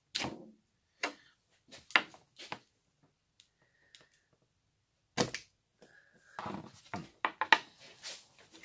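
Thin plastic mould sheet crackling and snapping in a series of separate sharp crinkles as it is cut with a small knife and pulled off a cured epoxy resin block. The sounds come thickest and loudest near the end.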